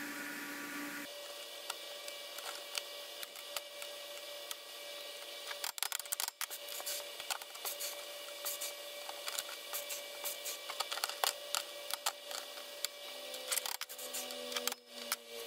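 Scattered clicks, taps and rattles of steel tubing being positioned and clamped with locking pliers on the metal base of a chop saw, over a steady shop hum.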